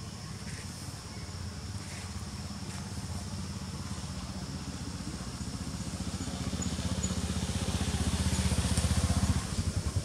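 A motor vehicle's engine running, a low pulsing rumble that grows steadily louder and falls off about nine seconds in.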